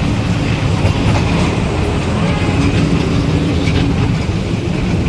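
Small ride-on toy train running along its track: a steady low rumble, with faint clicks from the wheels over the rail joints.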